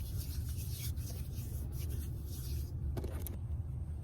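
Irregular rubbing and scuffing of something against the microphone, over a steady low rumble.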